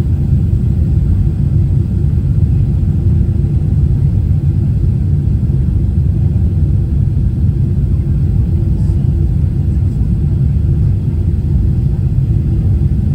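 Cabin noise inside a Boeing 777-300ER airliner: a steady low rumble of its GE90 engines and the airflow, unbroken throughout.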